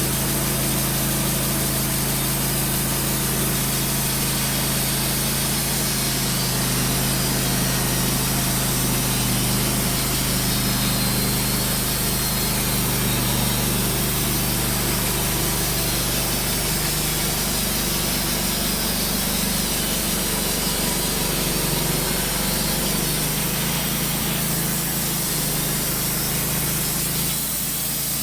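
WoodMizer LT15 portable band sawmill running with its engine at a steady drone while the band blade cuts a slab from a hard maple log. The sound shifts a little near the end.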